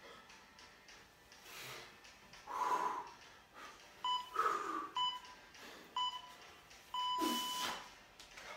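Electronic timer beeping a countdown: three short beeps about a second apart, then one longer beep. Hard, noisy breaths from exertion fall between and over them.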